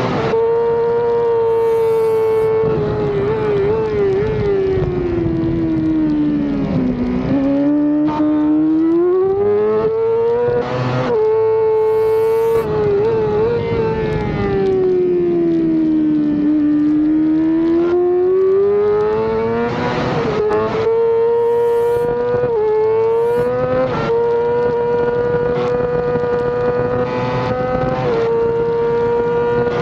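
Yamaha YZF-R6 race bike's 600 cc inline-four engine at high revs, heard from a camera on the bike: a loud, high steady note that sags twice as the revs drop and climbs back as it accelerates, broken by quick gear changes. Wind rush runs under the engine.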